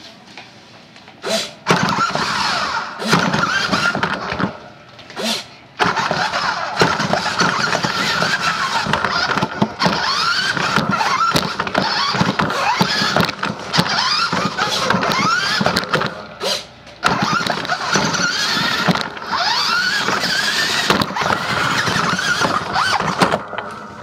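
Remote-control truck's motor and drivetrain heard from on board, a high squealing whine that swoops up and down in pitch as it is driven in bursts, cutting out briefly a few times.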